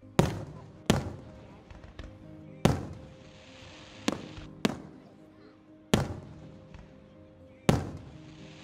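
Aerial fireworks shells bursting overhead: about seven loud bangs at uneven intervals, each followed by an echo. A crackling hiss trails some of the bursts.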